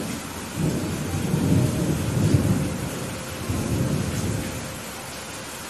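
Thunder rumbling over steady heavy rain. The rumble starts about half a second in, swells twice and dies away near the end, while the rain's hiss carries on underneath.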